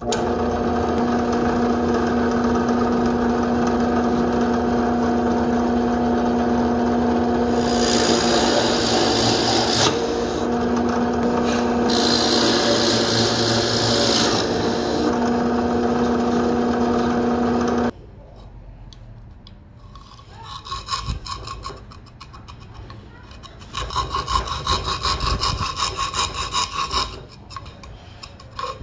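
A benchtop drill press motor runs with a steady hum, and its bit cuts into birch plywood twice with a rising hiss. After the motor stops, a narrow saw blade threaded through a drilled hole saws the plywood in short bursts of back-and-forth strokes.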